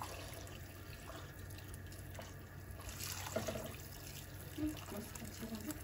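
Boiling water poured in a steady stream from an enamel kettle into a stainless steel pot, splashing into the water already in it.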